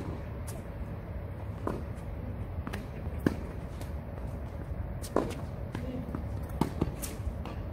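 Tennis rally on a hard court: sharp knocks of racket strikes and ball bounces every second or two, with shoe steps on the court surface between them.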